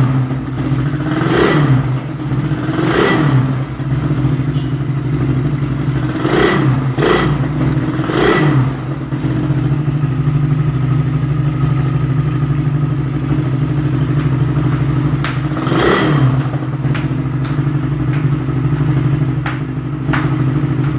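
Suzuki motorcycle engine idling through its stock exhaust with the catalytic converter removed, blipped briefly several times in the first nine seconds and once more past the middle, settling back to a steady idle between revs.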